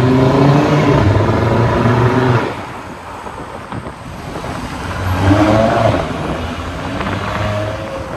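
Straight-piped Audi RS Q3's turbocharged five-cylinder engine accelerating away, revs rising, then cutting off sharply about two and a half seconds in. A second, shorter pull follows about five seconds in, then steadier running as it moves off.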